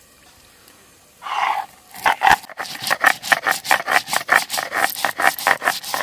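Mustard seeds being ground wet on a stone grinding slab (shil-nora), the grinding stone rasping over the slab. A short scrape comes about a second in, then quick back-and-forth strokes, about four to five a second, from about two seconds in.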